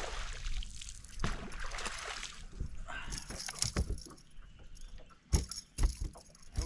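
A hooked bass splashing and thrashing at the water's surface beside the boat in several surges, with a light jangling of tackle, then two dull thumps near the end as the fish is landed.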